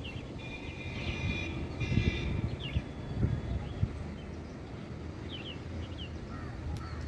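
Outdoor background: a steady low rumble with two short, high, horn-like tonal calls in the first two seconds, a few soft low thumps, and scattered brief chirps.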